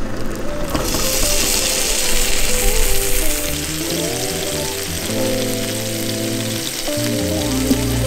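Thick steak laid into a frying pan of hot melted butter, sizzling steadily from about a second in, over background music.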